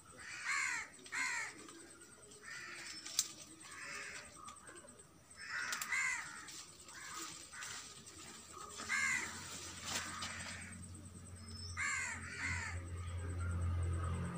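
Crows cawing repeatedly, about a dozen harsh caws in ones and twos. A low steady hum comes in over the last few seconds and grows louder near the end.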